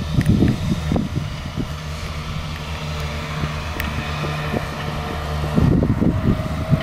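Steady low hum of a running motor, with gusty low rumbling, typical of wind on the microphone, joining in a little after five seconds.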